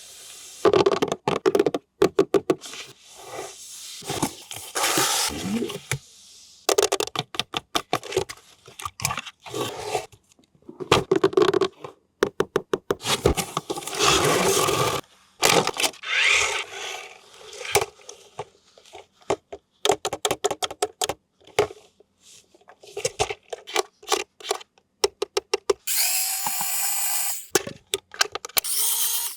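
Small electric toy motors whirring and plastic parts clicking and rattling from RC toys, in short bursts cut together with sudden silent gaps.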